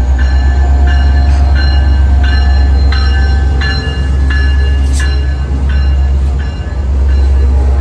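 A Caltrain diesel locomotive pulling out with a loud, deep, steady engine rumble. Above it, a ringing tone repeats about every two-thirds of a second, and there is a single sharp click about five seconds in.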